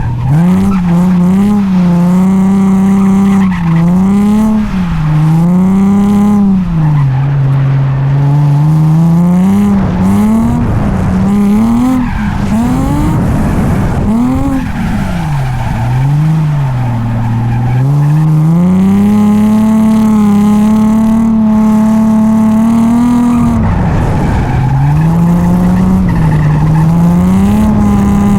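Drift car's engine revving hard and swinging up and down every second or two as the driver works the throttle, then held steady near the top of the revs for several seconds before dropping and climbing again, with tyres skidding under it.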